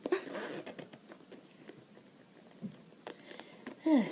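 Zipper of a shiny holographic pouch being pulled open, a light rasp with small clicks and rustling of the material, loudest in the first second. A short falling voice sound near the end.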